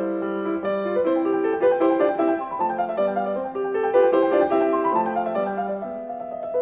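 Solo piano music: a steady flow of struck notes with a melody moving up and down over a lower line.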